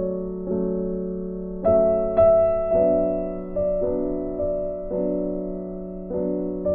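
Background music: soft keyboard chords that ring on, with a new chord struck about every half second to a second.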